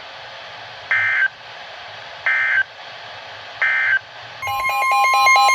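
NOAA Weather Radio EAS/SAME end-of-message signal: three short warbling digital data bursts about 1.3 seconds apart, marking the end of a severe thunderstorm warning. About four seconds in, a rapid electronic beeping starts, together with the steady 1050 Hz weather-radio warning alarm tone that begins the next alert.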